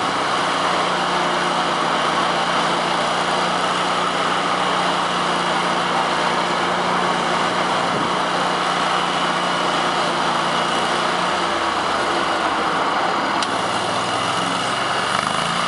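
Rayco RG1625A stump grinder's engine running steadily, its note shifting lower and then rising about twelve seconds in.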